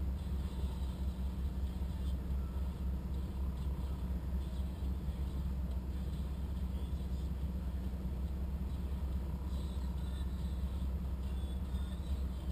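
Off-road 4x4's engine idling, a steady low rumble picked up close to the engine.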